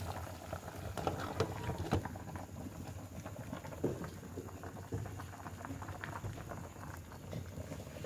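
A pot of pork stew boiling hard under a glass lid: a steady bubbling, with many irregular small pops.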